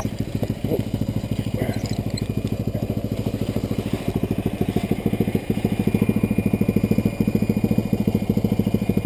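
Yamaha Rhino UTV's single-cylinder engine idling with a steady, rapid putter. A faint thin whine joins it about halfway through.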